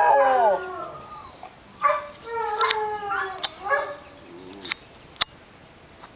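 Tibetan terrier howling: a long howl slides down in pitch and trails off within the first half second, then a second, shorter howl rises and slides down again from about two to four seconds in. A few sharp clicks follow near the end.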